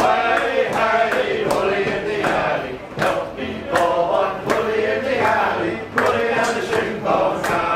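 A group of men singing together, with frequent sharp clicks or knocks scattered through.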